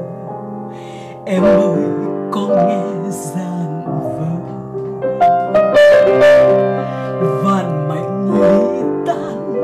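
A woman singing while accompanying herself on an upright piano. The piano sounds alone for about the first second, then her voice comes in and holds long, slightly wavering notes over the chords.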